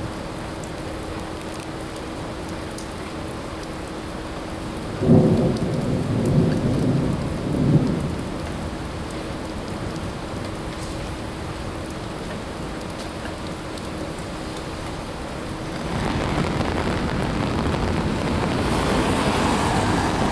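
Steady rain falling during a thunderstorm, with a low rumble of thunder about five seconds in that swells three times over some three seconds. About sixteen seconds in, the rain sound grows louder.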